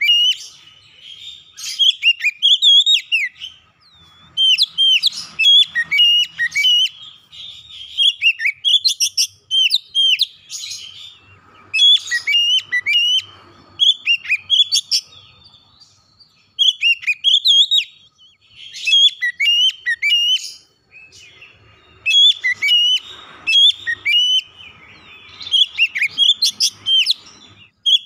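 Oriental magpie-robin (kacer) in full song: loud, rapid, varied whistled phrases in repeated bursts, with short pauses between them.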